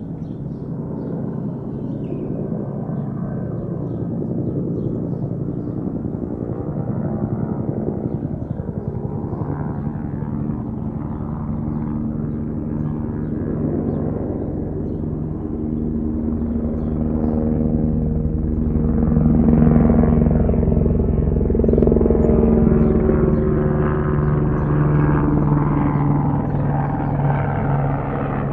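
Helicopter circling, its rotor blades beating rapidly over a steady low hum. The sound swells and eases slightly as it passes round, and is loudest about two-thirds of the way through.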